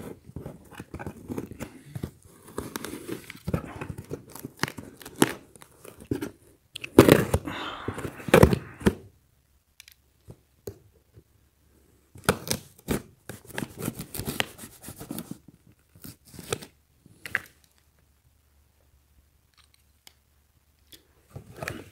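A folding knife slitting the packing tape along a cardboard box's seam, with crackling tape-tearing and scraping that is loudest about seven to nine seconds in. Later come a scatter of clicks and handling rustles, then a few seconds of quiet before the cardboard flaps are handled near the end.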